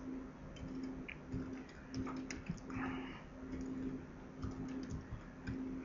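Computer keyboard being typed on: faint, irregular key clicks as a short sentence is entered, with a brief soft hiss near the middle.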